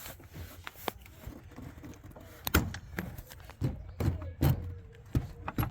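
Irregular metal clunks and knocks of a 3/4-inch drive wrench with a cheater bar being levered against a serpentine belt tensioner pulley, several heavier knocks from the middle on.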